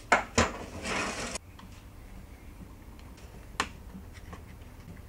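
Hard objects being handled on a bench: two quick knocks, a short scrape about a second in, then a single sharp click and a few faint ticks.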